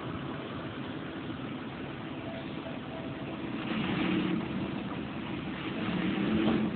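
John Deere farm tractor's diesel engine running under load, swelling louder twice, about four and six seconds in, as it strains to pull a dump trailer stuck in snowy mud.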